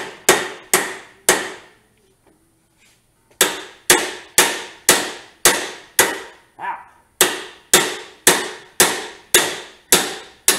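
Hammer blows on the top bolt of a motorcycle front fork, about two a second, each with a short metallic ring, driving a rust-seized fork tube down out of the triple clamp. A run of four, a pause of about two seconds, then a steady string of blows.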